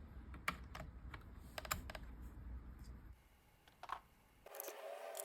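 Scattered key clacks on a CIY68 mechanical keyboard with Aula building-block switches, several irregular presses over a few seconds rather than steady typing, over a low rumble. About four seconds in the background changes to a steady faint hum.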